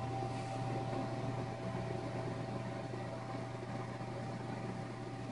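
Steady low machine hum with a faint, thin steady tone above it and no other events.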